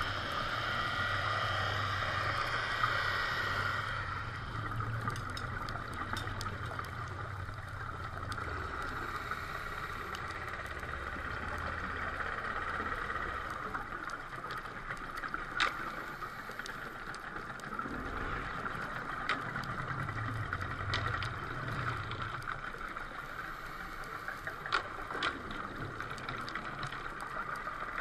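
Underwater ambience heard during a dive: a steady hiss with stretches of low rumbling, and a few sharp clicks scattered through it.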